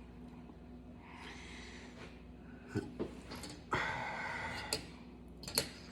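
A man's audible breaths: a faint one about a second in and a louder one near the four-second mark. A few small clicks fall between and after them.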